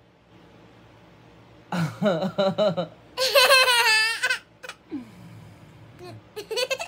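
Young girl laughing: giggles start about two seconds in, the loudest and highest-pitched stretch comes about three to four seconds in, and softer vocal sounds follow near the end.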